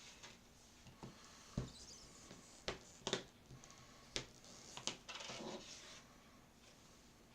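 Small crafting items being handled on a desk: about six light, separate clicks and taps, then a short rustle about five seconds in.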